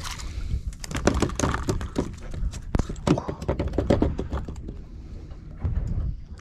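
Quick clicks and knocks of hands working a hook and bait on a plastic bait tray, thickest through the middle and tailing off near the end.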